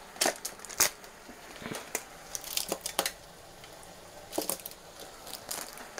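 Plastic squeeze tube of grated garlic being handled and squeezed over a bowl: plastic crinkling with a scatter of small sharp clicks and taps.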